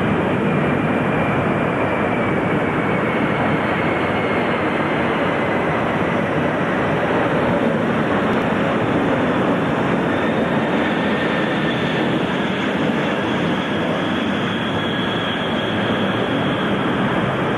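Four-engined Boeing 747 jet engines on landing approach, passing low: a steady broad noise with thin high whines that slide slowly down in pitch.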